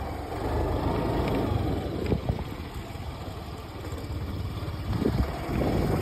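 Wind buffeting the microphone: an uneven, gusty low rumble that swells and dips, loudest near the start and again near the end.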